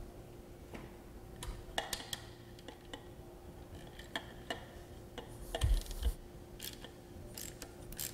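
Ratchet wrench clicking in short runs as a 7/16 socket backs out the hex screws holding the check valve on a grinder pump, with a couple of dull knocks a little before six seconds in.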